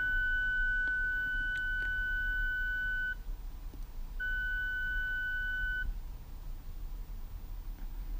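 Alfa Romeo 4C's electronic warning chime as the ignition is switched to accessory: a steady high beep that stops about three seconds in, then sounds again for about a second and a half.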